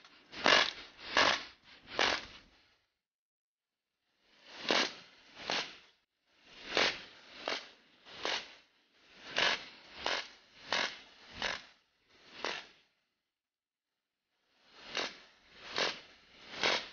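Robot puppy toy playing its recorded dog sounds through its small speaker: short yaps in runs of two to five, a little under a second apart, with pauses between the runs.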